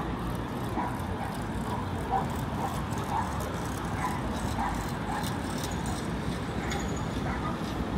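Steady low rumble of city traffic, with faint short sounds recurring every half second or so over it.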